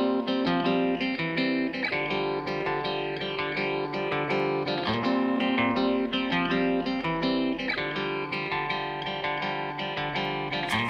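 Background music led by a plucked, strummed guitar.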